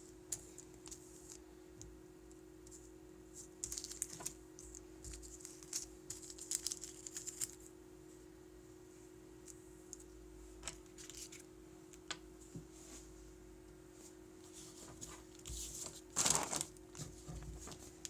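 Hands handling a boxed toy quadcopter and its packaging: scattered light clicks and short rustles of plastic and cardboard, with a louder rustle near the end. A steady low hum runs underneath.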